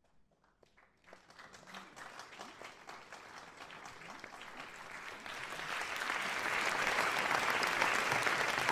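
Audience applause: a few scattered claps at first, swelling steadily into full, dense applause.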